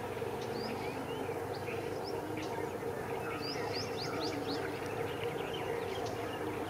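Many small birds chirping and whistling in quick, short calls, over a steady low hum.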